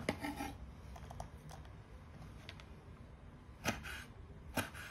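Kitchen knife slicing a red chili pepper into rings on a wooden cutting board: a tap of the blade on the board at the start, a few faint ticks, then two sharper taps near the end.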